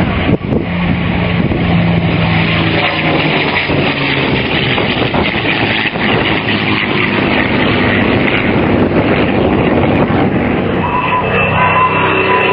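P-51D Mustang's Packard Merlin V-12 engine running loud and steady in flight. Near the end a high whistling tone joins it, slowly dropping in pitch.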